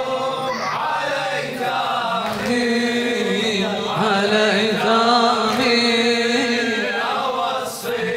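A group of men chanting a Shia latam lament refrain together in unison, the congregation's sung response to the reciter's line.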